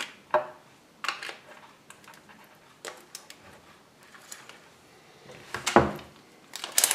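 Hard plastic parts of a toy rotor flyer clicking and clacking as they are handled and fitted together, with a louder clack near the end. Just at the end a rapid run of clicks begins.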